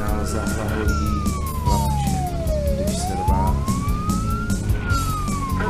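Fire engine siren wailing, its pitch sliding slowly up and down about once every four seconds, over music with a steady beat.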